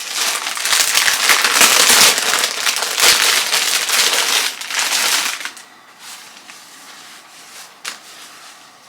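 Packaging being unwrapped by hand: loud, dense crinkling and rustling for about five seconds, then fainter handling with a couple of light clicks.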